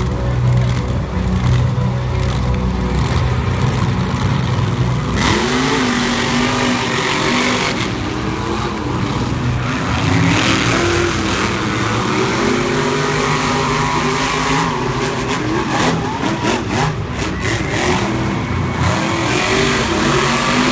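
Monster truck engines: a steady low drone at first, then from about five seconds in the engines rev hard, their pitch rising and falling as the trucks race around the dirt track.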